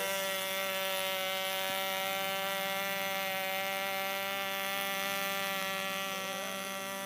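Norvel .074 two-stroke glow engine of a model plane running steadily, a buzzing drone held at one even pitch.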